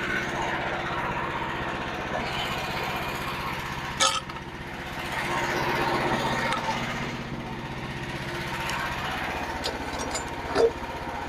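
Frontier OS27 portable band sawmill running steadily, its engine driving the blade through a white oak log. A sharp click about four seconds in and another brief sharp sound near the end.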